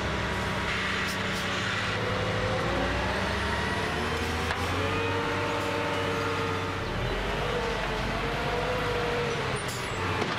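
Cartoon sound effect of a heavy machine: a steady engine rumble with a slowly rising and falling whine as the grapple crane's arm moves. The rumble changes about seven seconds in.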